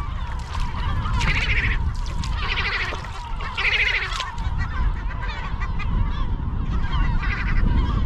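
Gulls calling, with three calls in the first four seconds and one more near the end. These are the adults protesting at people near their nest and chick. Wind rumbles on the microphone throughout.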